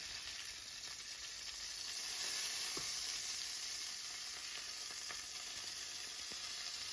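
Marinated chicken pieces sizzling in shallow hot oil in a frying pan, a steady hiss that swells a little about two seconds in.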